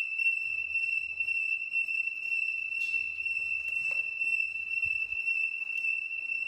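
Apartment building fire alarm blaring a continuous, piercing high electronic tone that holds one pitch throughout. It is sounding although there is no fire.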